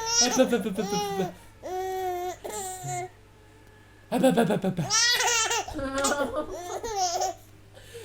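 Baby laughing in several high-pitched bursts, with a pause of about a second midway.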